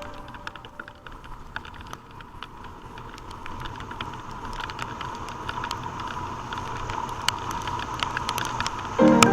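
Vehicle road noise with a faint steady hum, slowly growing louder, and many scattered small clicks and ticks throughout.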